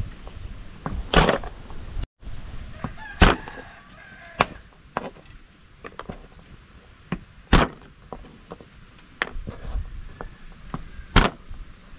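Knife knocking on a cutting board at irregular intervals as garlic is cut. Faint chicken calls sound in the background about three to four seconds in.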